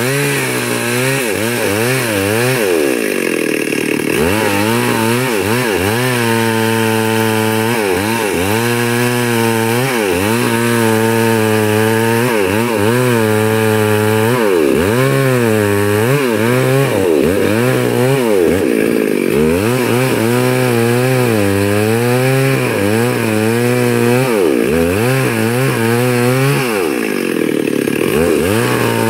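Two-stroke chainsaw ripping lengthwise along a very large log, running continuously under heavy load. Its engine pitch repeatedly sags and climbs back as the bar is worked through the cut.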